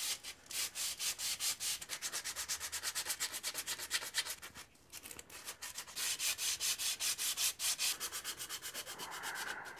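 Sandpaper rubbed by hand along a hickory atlatl: quick back-and-forth sanding strokes, about four or five a second, with a brief pause about halfway through.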